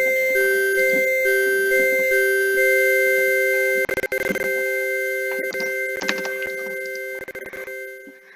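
Electronic keyboard-like two-note chord, held and re-struck about every three-quarters of a second as part of an emergency alert broadcast. A short noise burst cuts in about four seconds in, and the chord slowly fades out near the end.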